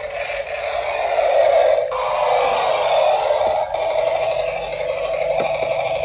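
Battery-operated bump-and-go toy police helicopter running across a tiled floor: tinny electronic sound effects from its built-in speaker over the whir of its small gear motor and spinning rotor, changing in character about two seconds in.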